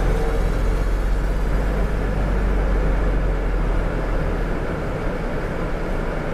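City bus engine running steadily, a continuous low rumble heard from inside the bus cab.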